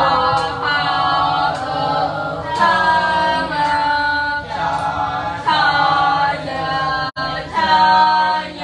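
A group of voices chanting in unison in a sing-song recitation, each syllable held as a long steady note, typical of a class reciting its lesson aloud together. There is a brief break about seven seconds in.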